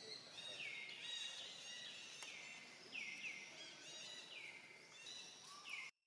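Forest ambience of birds calling over and over, each call a high note sliding down in pitch, about one a second, over a faint hiss. The sound cuts out for a moment at the very end.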